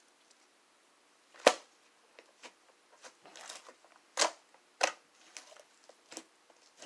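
Fluffy cotton candy slime being squished and pressed by hand, giving a series of sharp pops and softer clicks, the loudest about a second and a half in and twice more between four and five seconds in.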